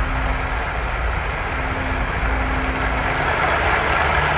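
Applause from a large crowd, played through outdoor loudspeakers, swelling slightly toward the end over a steady low rumble.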